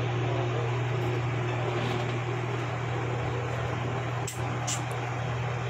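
Evaporative air cooler's fan running with a steady low hum.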